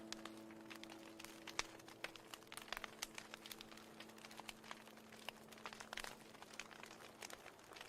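Wood fire crackling faintly, with irregular small pops and snaps.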